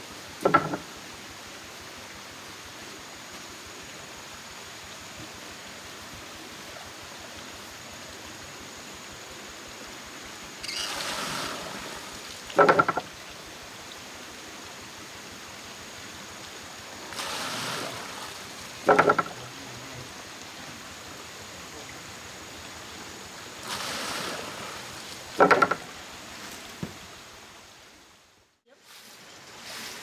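Water-powered wooden rice pounder working beside a running stream: a rush of spilling water as the see-saw beam tips, then a sharp knock as the pestle drops back into the mortar, repeating about every six and a half seconds. Four knocks in all, the first with no rush before it.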